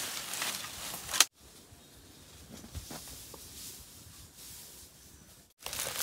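Leaves and brush rustling as branches are handled, with a sharp snap about a second in; then a quieter stretch with a few faint knocks, and the rustling returns near the end.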